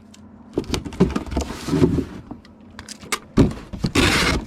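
Rustling, scraping and a few knocks from a cardboard shipping box and packing material being handled.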